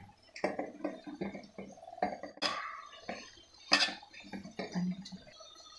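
A hand mixing soft, soaked soya chunks into flour and spice powder in a stainless steel bowl: irregular soft mixing sounds with a few sharp clinks against the bowl, the loudest about two and a half and nearly four seconds in.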